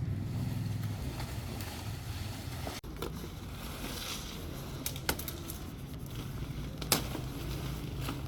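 A heavy machine's engine running steadily, with two sharp knocks in the second half.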